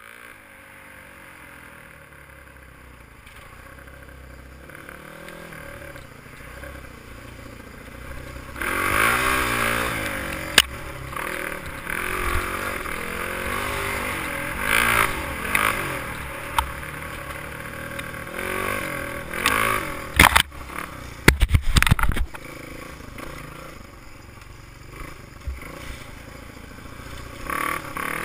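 Honda XR200 dirt bike's single-cylinder four-stroke engine revving up and down as it is ridden along a trail, heard from a helmet camera with wind rushing over the microphone. The sound starts quieter and gets louder about a third of the way in. Sharp knocks and clatter from the bike hitting bumps come once near the middle and in a quick cluster about two-thirds through.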